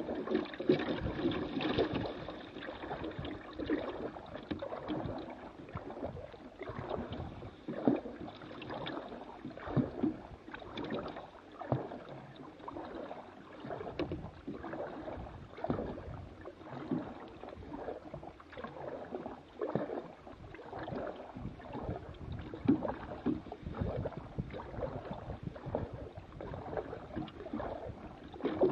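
Paddle strokes in the water beside a small plastic paddle boat: repeated splashes and drips, one every second or two.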